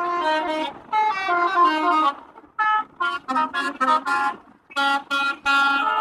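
Basuri musical car horn playing quick melodic note runs in three short phrases, with brief breaks about two seconds in and shortly before five seconds.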